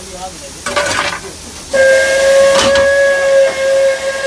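Steam whistle of an Indian Railways Class WP steam locomotive heard from inside the cab, sounding one long steady blast that starts nearly two seconds in. Before it comes a short clatter of the fireman's coal shovel at the firebox, and a single clank cuts in during the whistle.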